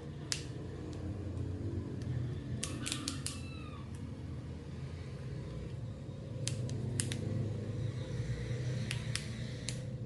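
Plastic clips of a Huawei Y6 II phone's housing clicking loose as a plastic opening pick is worked along the seam: sharp clicks, singly and in quick clusters of three or four, over a steady low hum. A short high squeak sounds among the clicks about three seconds in.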